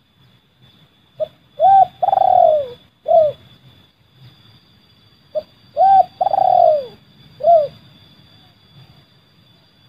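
Spotted dove (terkukur) cooing: two phrases about four seconds apart, each of four notes, the third note long and falling in pitch. This is the call type that dove keepers name 'seladang gantung'.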